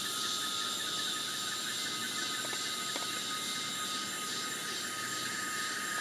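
Chorus of cicadas: several steady, overlapping high-pitched drones with a fine pulsing, together sounding like a symphony.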